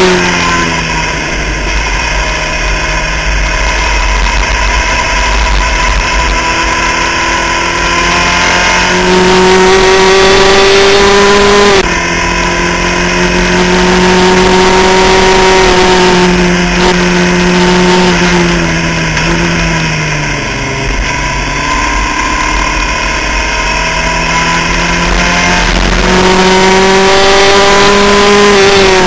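Skip Barber formula race car's four-cylinder engine running hard on track, its pitch climbing and holding at high revs, dropping sharply about twelve seconds in, falling away around twenty seconds, then climbing again near the end. Wind rush on the onboard microphone runs underneath.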